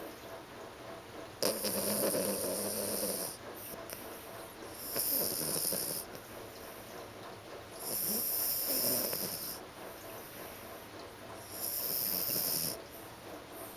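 A sleeping pet snoring: four slow, hissy snoring breaths, each one to two seconds long, coming about every three to four seconds.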